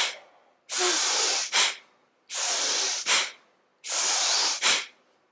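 Bhastrika (bellows breath) being demonstrated: forceful, active breaths, each a loud rush of air about two-thirds of a second long followed by a short sharp puff, repeating about every second and a half.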